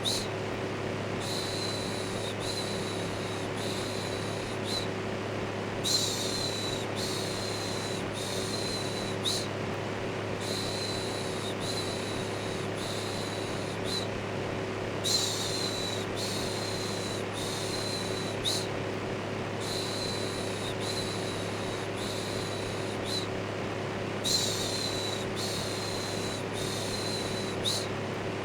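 Electric fan running with a steady whoosh and low hum, overlaid with rhythmic "shhh" shushing: short shushes in runs of several, with brief pauses between runs.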